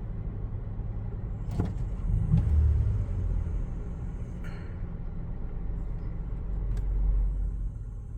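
2017 Toyota Sienna's 3.5-litre V6 running with a low steady rumble that swells louder twice, with a few light clicks. The engine has intermittent misfires on cylinders 3, 5 and 6, which the mechanic puts down to dirty fuel injectors.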